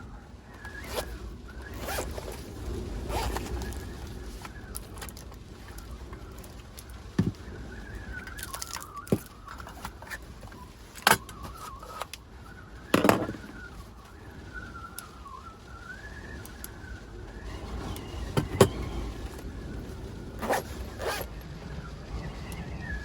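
Strong storm wind buffeting a kei van, heard inside as a low rumble with a faint wavering whistle. Scattered sharp clicks and knocks come from things being handled in the cabin.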